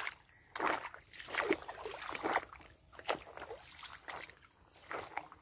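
Footsteps through shallow river water over rounded pebbles: each step crunches on the stones and sloshes the water, at a steady walking pace.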